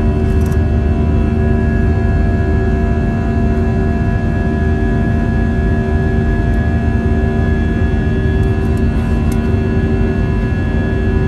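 Airbus A320 jet engines heard from inside the cabin at climb power just after takeoff: a steady deep rumble with several even hums layered over it. A few faint ticks come near the start and again about nine seconds in.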